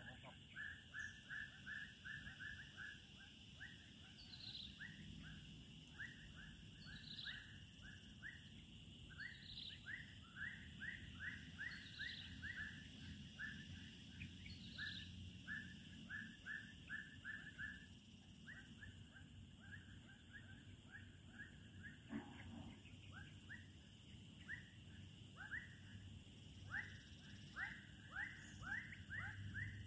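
Dusk chorus of wild animals: a steady high insect drone under a fast run of short chirping calls, about four a second, with a higher falling call every couple of seconds during the first half.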